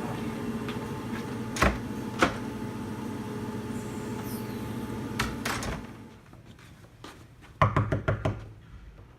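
A steady low hum with two sharp clicks and a couple of dull thuds, the hum stopping about six seconds in. Near the end comes a quick run of about five knocks, like knuckles rapping on a door.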